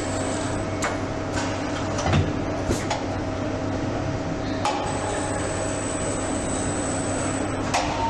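Steady hum of automated assembly-line machinery with a constant high whine, broken by about six sharp clicks and knocks from tooling engaging and releasing an electric motor housing.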